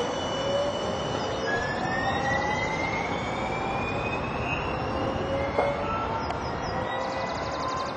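San Diego Trolley light-rail train running, a steady rush of noise with whining tones that slowly rise in pitch. A single short knock sounds about halfway through.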